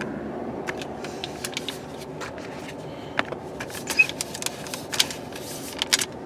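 Snow plow truck engine idling, heard from inside the cab as a steady low hum, with irregular sharp clicks and rattles that come thicker and louder in the second half.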